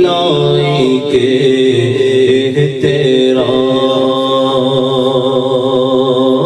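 A man's voice chanting an unaccompanied Urdu salaam, a devotional salutation to the Prophet, through a microphone. He holds long drawn-out notes that waver at first and settle into a steady hold about halfway through.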